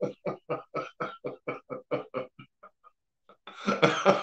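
A man laughing heartily, a quick run of ha-ha pulses that trails off after about two and a half seconds.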